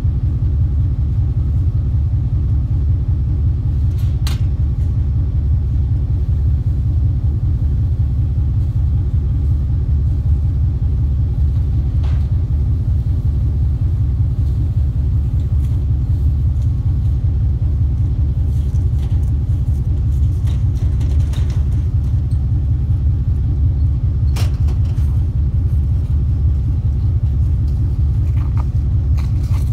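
Steady low rumble of a vehicle on the move, as heard from inside the cab, with a few faint clicks or knocks scattered through it.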